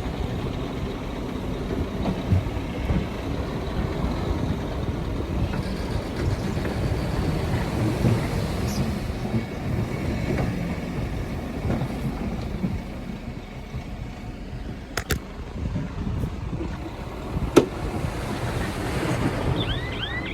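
Heavy diesel earthmoving machinery running with a steady low rumble, with two sharp clicks or knocks about three-quarters of the way through.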